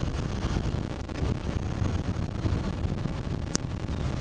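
Steady rumble of road and engine noise inside a car's cabin as it drives in city traffic. A short high click sounds about three and a half seconds in.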